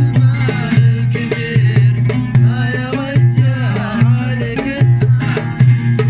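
Oud being plucked, playing an Arabic sha'bi folk tune over a steady low percussive beat.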